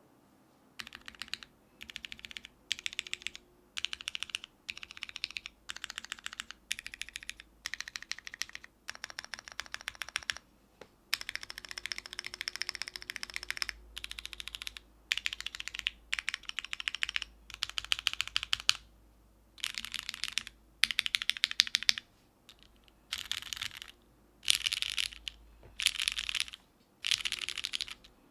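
Typing on a mechanical keyboard with linear Cherry MX Black switches on a full aluminium plate, bottom mount, with GMK keycaps: fast runs of key clacks in bursts of about one to two seconds, broken by short pauses.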